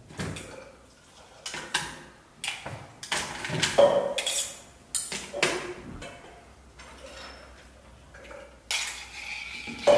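Ice cubes dropped with metal tongs into a steel mixing tin, making a run of irregular clinks of ice on metal. The clinks come thick for the first few seconds, then thin out to a couple more near the end.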